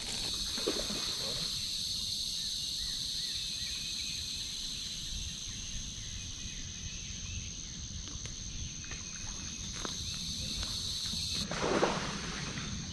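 Steady chorus of insects, a continuous high-pitched buzz layered at several pitches over a low rumble; the lowest part of the chorus cuts off about eleven seconds in, just before a short louder sound.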